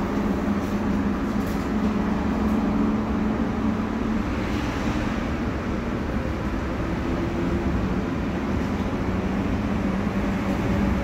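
Interior running noise of a BN PCC tram under way: a steady low hum over wheel-on-rail rumble, heard from inside the passenger compartment.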